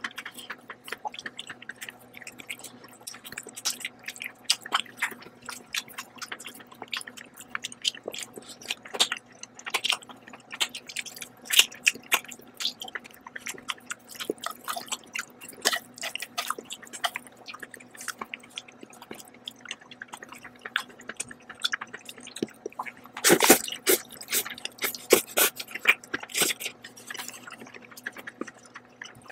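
Close-miked eating of noodles and chicken: wet chewing and mouth smacks in many short, irregular clicks, with a louder flurry about three-quarters of the way through.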